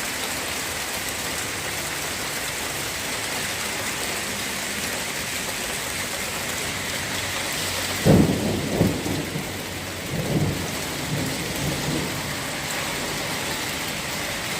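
Steady hiss of heavy rain pouring down. About eight seconds in comes a sudden loud, low rumble lasting about a second, followed by weaker low swells.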